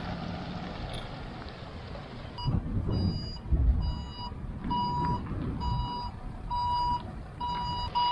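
A van's reversing alarm beeping evenly, about one short high beep a second, starting about two seconds in as the van backs a boat trailer, over low engine and wind rumble.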